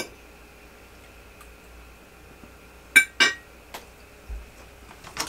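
Kitchenware clinking: a sharp click at the start, then two quick ringing clinks about three seconds in, and a few lighter taps near the end.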